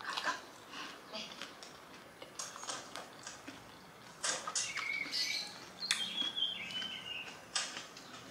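Close-up eating sounds: crunchy chewing of crispy fried chicken and chopsticks clicking against a ceramic bowl, a string of short crisp crunches and clicks. A few faint high steady tones come in around the middle.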